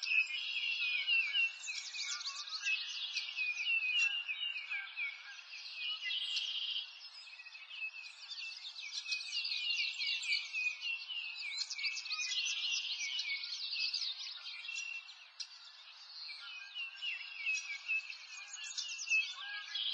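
Many small birds chirping at once: a dense, unbroken chorus of quick, high calls, thinning briefly twice.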